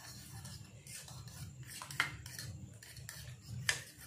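A plastic fork beating eggs in a bowl: faint, irregular scraping strokes, with a few sharper clicks of the fork against the bowl, the clearest about two seconds in.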